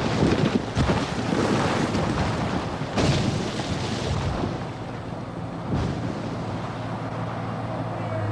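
Brick masonry arch collapsing: bricks and rubble crashing and rumbling down, with heavy impacts in the first second and again about three seconds in, dying away after about four and a half seconds. A steady low hum of the excavator's diesel engine comes up near the end.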